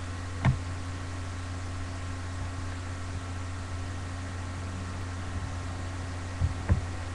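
A steady low hum with hiss, broken by a few short knocks: one about half a second in and two close together near the end.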